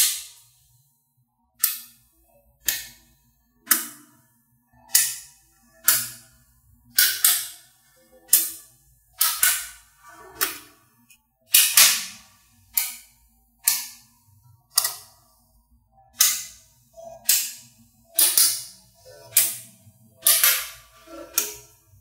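Blocks of small magnetic balls snapping onto a magnet-ball build: sharp clicks one after another, about one a second, each with a short ring.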